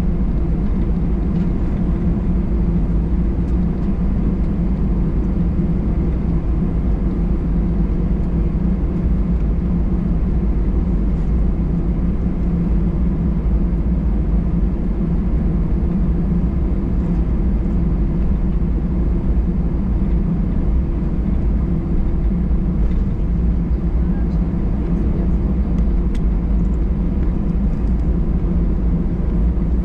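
Cabin noise inside an Airbus A319 taxiing after landing: a steady low rumble from its CFM56 engines at taxi power and the airframe, even and unchanging throughout.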